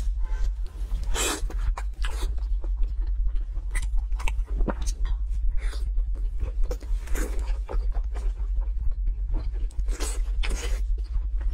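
A person chewing braised pork belly with the mouth close to the microphone: a dense run of short, wet smacking clicks and crunches. A steady low hum runs underneath.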